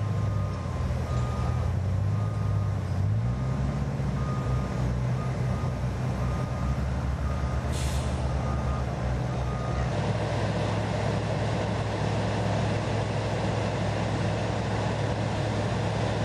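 Large crawler crane's diesel engine running under load, its pitch rising about three seconds in, with a warning beeper sounding on and off. Near eight seconds there is a short hiss of air. After about ten seconds the beeping stops and the engine carries on as a steady rumble.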